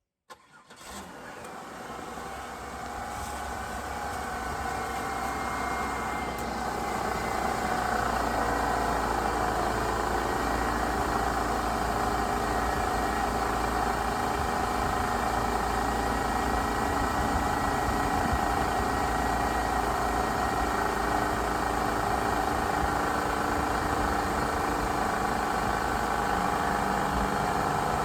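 1997 Pontiac Grand Prix's V6 engine starting about half a second in and then idling steadily, its sound building over the first several seconds. It is being run to purge air from the cooling system after new heater hoses were fitted.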